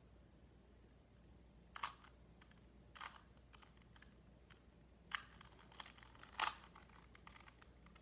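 Plastic clicks and clacks of a Rubik's Cube's layers being turned by hand, coming at irregular intervals, with a few sharper clacks and the loudest about six seconds in.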